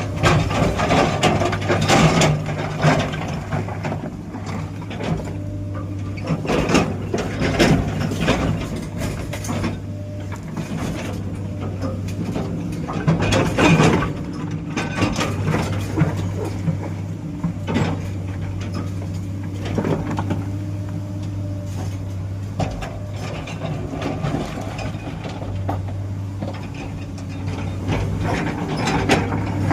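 A heavy diesel engine running steadily, with irregular clanks and knocks over it, loudest about 2 s, 7–8 s and 13–14 s in.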